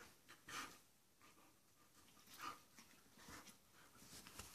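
Faint breathing and huffing of a Chihuahua and a Portuguese Water Dog play-wrestling, with short huffs about half a second and two and a half seconds in.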